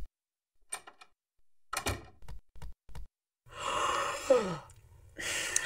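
A few soft thumps, then a cartoon character's long, breathy yawn that ends in a falling groan, followed by a second breathy exhale like a sleepy sigh.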